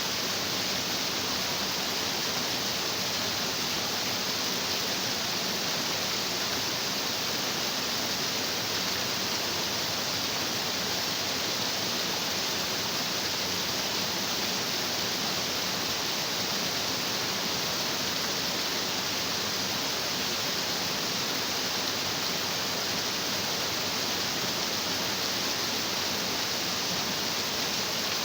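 Stream water rushing and splashing over rocks, a steady, even hiss that does not change.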